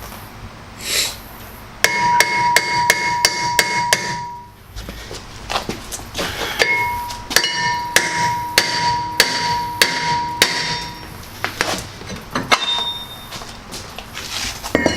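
A hammer striking metal on a car's brake assembly in two runs of quick blows, about three a second, each blow leaving a clear metallic ring.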